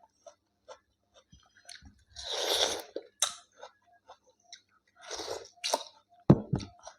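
Close-miked eating sounds: wet chewing and lip smacks, with two short breathy bursts and a low thump near the end.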